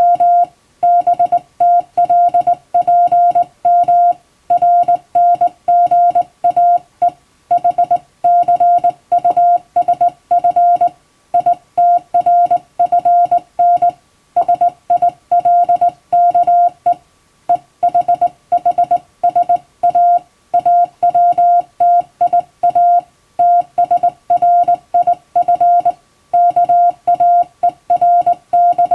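Hand-sent Morse code in international (Latin-alphabet) code, keyed in telegram format: a steady mid-pitched sidetone switched on and off in quick dots and dashes, with brief gaps between characters and words.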